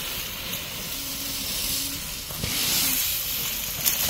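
Dry fallen leaves rustling and crunching, a steady hiss that swells about two and a half seconds in, with a few sharp crackles.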